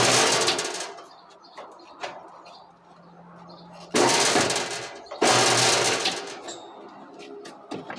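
A small power tool running in short bursts: a hissing whirr with a low hum stops early on, and starts again twice, about four and five seconds in, each time cutting off sharply. Light clicks and knocks come between the bursts.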